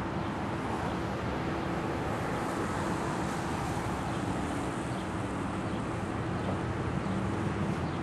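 Steady traffic noise with a constant low hum under it.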